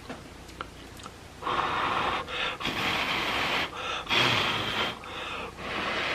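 Spicy instant ramen noodles being slurped noisily into the mouth in about four long, hissing pulls, the first starting about a second and a half in.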